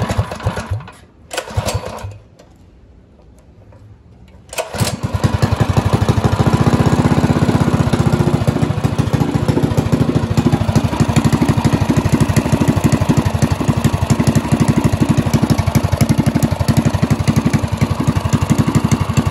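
Predator 212 single-cylinder four-stroke minibike engine, fitted with a stage one kit (pod air filter, rejetted carburettor, aftermarket exhaust), being pull-started. After a couple of short pulls it catches about four and a half seconds in, then runs steadily with rapid, even firing pulses.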